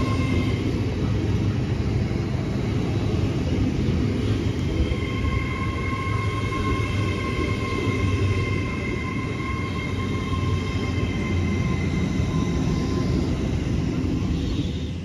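A train running at the station: a steady low rumble with a steady high-pitched whine over it, which fades about half a second in and comes back about five seconds in.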